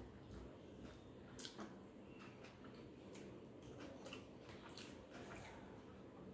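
Very faint, soft wet squishes and small clicks of fingers mixing biryani with raita and chutney on a plate, scattered through otherwise near-silent room tone.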